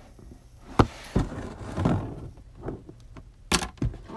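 Scissors cutting through the packing tape and cardboard of a shipping box, with scratchy scraping as the blade is drawn along the seam. There is a sharp snap about a second in, the loudest sound, and two knocks near the end as the box is handled.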